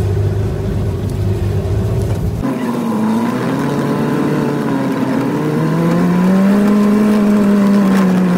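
Mahindra jeep engine running as it crawls over a rocky track, its pitch dipping and rising and then holding higher near the end. The low rumble changes abruptly about two and a half seconds in.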